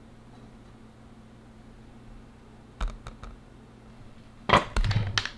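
Hard plastic battery cases knocking against a glass bathroom scale as batteries are swapped on and off it: a few light clicks about three seconds in, then a cluster of louder clunks near the end as a heavy lead-acid deep-cycle battery is set down.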